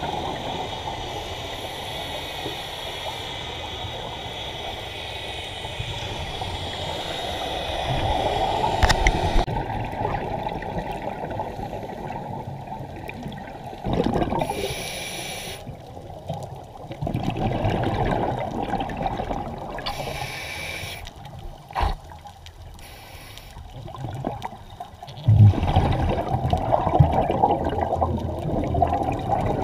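Underwater recording of scuba regulator exhaust bubbles: muffled bursts of bubbling and gurgling every few seconds as divers breathe out, over a steady water hiss.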